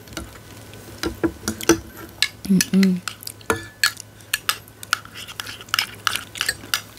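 A spoon clinking and scraping against a bowl while the chè chuối (banana and tapioca sweet soup) is stirred and eaten, as a string of short light clicks. A brief vocal sound comes about two and a half seconds in.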